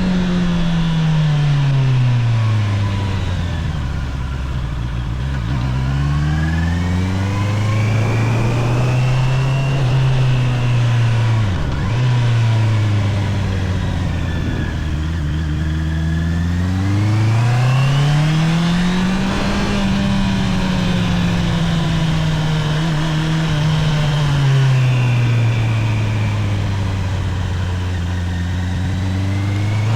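Honda CBR650R's inline-four engine running through its stock exhaust while riding. The pitch drops over the first few seconds, climbs again, dips sharply for a moment just before the middle like a gear change, rises to a peak about two-thirds through, then falls and begins rising again at the end.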